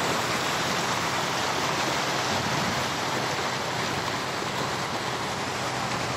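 Floodwater rushing and splashing over a road, a steady unbroken rush of water noise.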